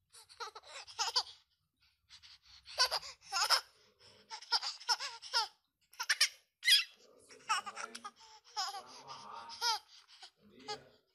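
A baby laughing in short repeated bursts of high-pitched giggles, with brief pauses between them.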